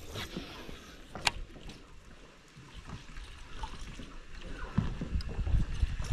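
Low rumble of water and wind around a fishing boat while a cast is reeled in, with one sharp click about a second in and a few low thumps near the end.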